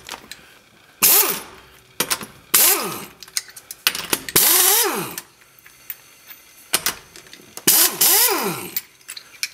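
Pneumatic impact wrench with a 3/4-inch socket spinning lug nuts off a car wheel. It runs in four short bursts of air hiss, each ending in a falling whine as the air motor spins down, with a few clicks between bursts.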